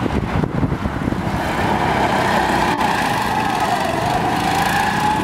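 Go-kart engine running as a kart drives past on the track, its note dipping a little mid-way and rising again toward the end.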